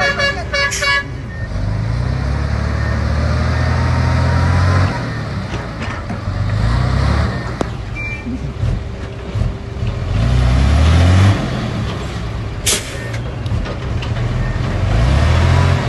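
Diesel dump truck engine revving hard in three long surges and dropping back between them, as the truck tries to pull its wheels out of mud. A few short beeps sound at the very start, and a brief sharp hiss of air comes about two-thirds of the way through.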